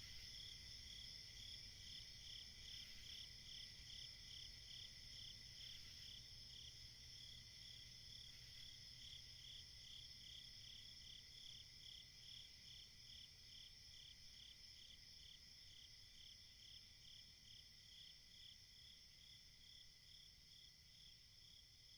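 Crickets chirping on a summer night: a steady high trill with one layer pulsing about three times a second. It is faint and slowly fading.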